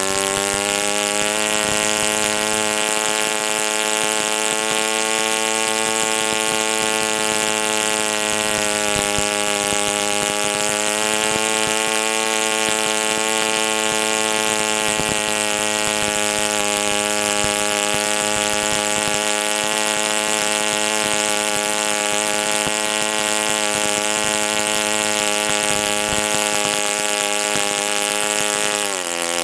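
YS FZ63S four-stroke model-aircraft glow engine running at high speed without a muffler, turning an APC 11x7 propeller. It runs steadily with slight wavers in pitch, and the pitch drops as it is throttled back at the very end.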